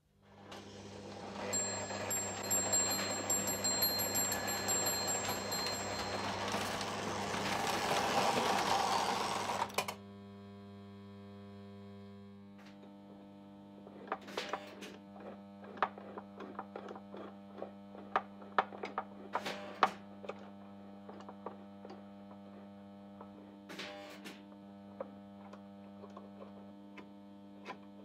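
Steady electrical mains hum from the toy-train set-up, with scattered sharp clicks and knocks from about fourteen seconds on as the hand-worked forklift of the Lionel 460 piggyback platform is moved. For the first ten seconds a louder rushing noise with faint high whines lies over the hum, then stops abruptly.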